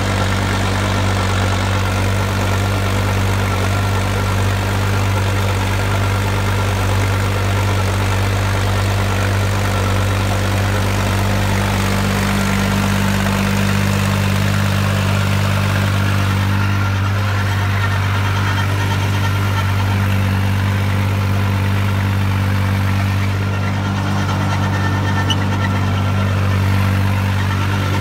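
New Holland 3630 tractor's diesel engine running steadily under load, working an 8-foot rotavator at full depth in first gear, with a low, even engine drone throughout.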